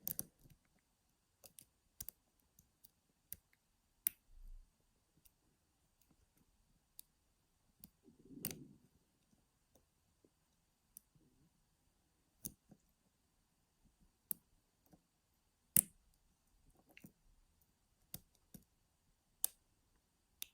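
Quiet, irregular small clicks of a homemade bra-underwire pick and tension wire working the pins inside a Carl F Euro cylinder lock, with a brief low rustle of handling about eight and a half seconds in.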